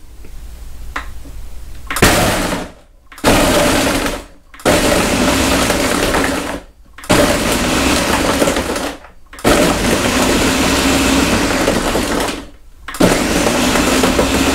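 Ninja blender pulsed in short runs to crush ice in a thick protein ice cream mix: six bursts of a second or two each, with brief pauses between.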